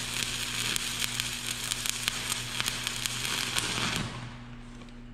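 Stick-welding arc of a 1/8-inch 7018 electrode at 125 amps DC electrode-positive, crackling steadily as a horizontal bead is run, then breaking off about four seconds in. A steady low hum remains after the arc stops.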